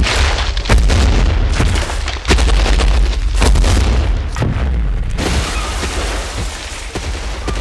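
Dramatic soundtrack of deep, sustained booming bass with sharp hits struck every second or so at uneven intervals.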